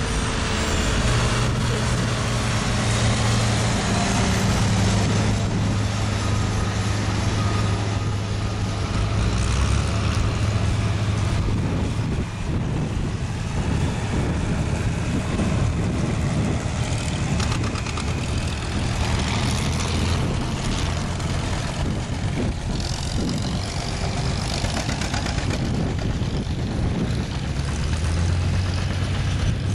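Farm tractor engines running steadily as tractors drive past one after another. The low engine hum shifts in pitch about a third of the way through and again near the end, as one tractor gives way to the next.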